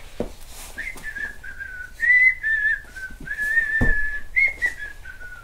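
A person whistling a wandering tune, starting about a second in. A dart thuds into a dartboard a little before four seconds in.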